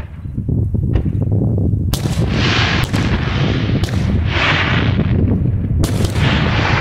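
Daytime aerial fireworks going off in quick succession: a dense, continuous rumble of rapid bangs with sharp cracks about once a second. Bursts of hissing crackle come around two, four and six seconds in.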